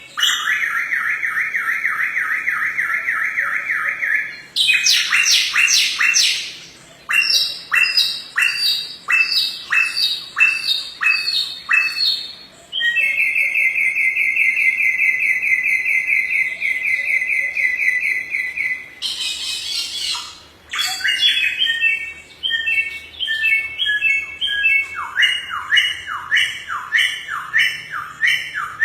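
Samyong songbird singing loudly and without pause in a varied song: long, rapid trills alternate with runs of sharp downward-sweeping notes, about two a second, and bursts of chirps. This is the 'gacor' full song that keepers play to teach other songbirds.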